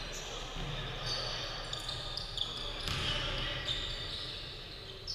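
Basketball game sounds in a gym: a basketball bouncing on the hardwood court several times and sneakers squeaking on the floor, with players calling out and the hall echoing.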